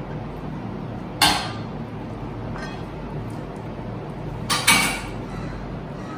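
A stainless steel pot clinks against a glass baking dish while mashed potato is scraped out of it. There is one sharp clink a little over a second in, a faint one later, and two quick clinks near the end, over a steady low hum.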